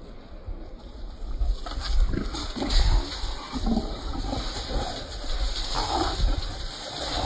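Trapped feral hogs squealing and grunting, loud and irregular from about two seconds in, as one is being roped.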